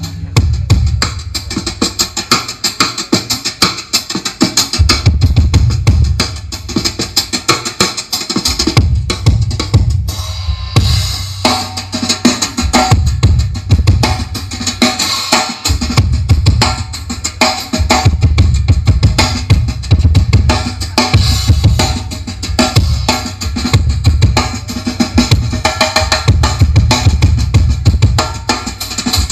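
Drum-heavy dance music played loud through a large SPL Audio outdoor sound system of stacked subwoofer boxes and line-array speakers. Deep bass swells in and out every few seconds under a steady beat.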